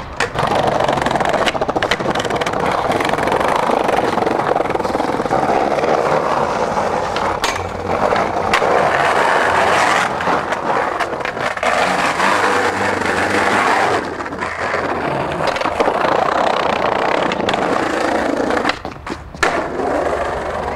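Skateboard wheels rolling over street pavement, a continuous gritty rumble, with a few sharp knocks of the board along the way.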